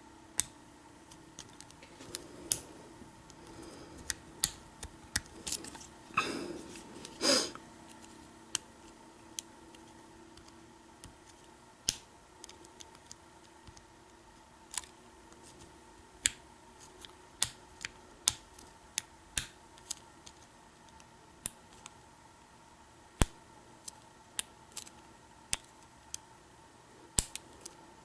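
Lock pick and tension wrench working the pin stack of a Kwikset deadbolt: irregular sharp, small metallic clicks, roughly one every second or so. Two louder, longer rustling scrapes come about six and seven seconds in.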